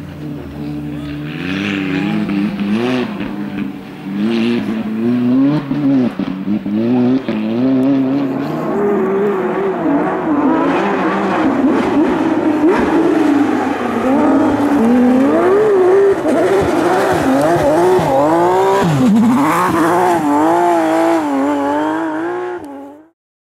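2017-spec World Rally Car's 1.6-litre turbocharged four-cylinder engine running hard, its pitch rising and falling again and again as it revs up and drops back through gear changes. It stops suddenly near the end.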